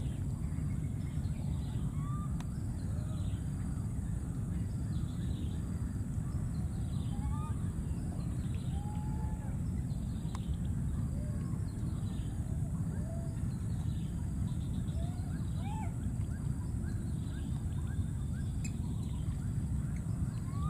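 Outdoor ambience: a steady low rumble under short chirping animal calls scattered throughout, with a constant thin high tone above them.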